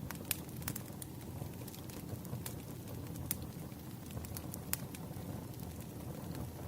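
Burning firewood crackling: irregular sharp snaps and pops, a few a second, over a steady low rumble of the fire.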